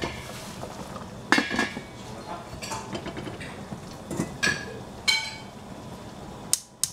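Cutlery and dishes clinking: a handful of separate sharp clinks, each ringing briefly.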